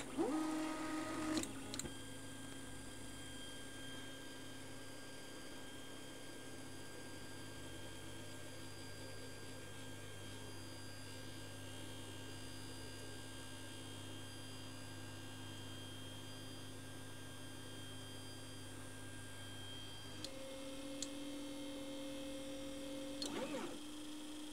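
Anet A8 3D printer homing all axes: its stepper motors give a faint, steady humming whine as the print head and bed travel, with a few clicks near the start. About twenty seconds in, the tone changes to a different, higher pitch.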